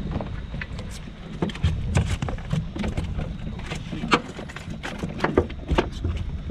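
Irregular clicks and knocks from a freshly caught fish thrashing and slapping as it is handled, over a low rumble of wind on the microphone.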